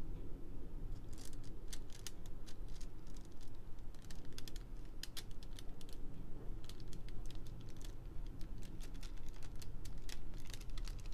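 Quick, irregular clicking and tapping of a plastic diamond-painting drill pen against the small resin drills on the canvas, as a row of drills is pressed and pushed into line. The clicks come thicker in the second half.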